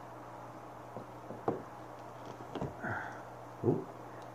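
Several light knocks and clicks of plastic filter fittings being handled against the aquarium glass, the loudest near the end, with a short squeak about three seconds in. A steady low hum runs underneath.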